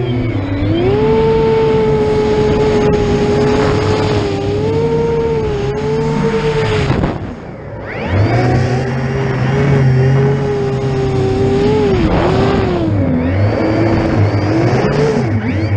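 12S X-class FPV racing drone's brushless motors and propellers whining under throttle, with wind rushing over the onboard camera. The pitch holds steady, drops and quietens sharply about seven seconds in as the throttle comes off, then climbs back, with several quick dips and rises near the end as the throttle is worked.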